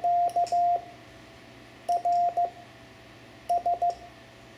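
Morse code sent by hand as a steady beeping tone of one pitch: the end of Q (dah-dah-dit-dah), then R (dit-dah-dit), then S (dit-dit-dit), the letters about a second and a half apart.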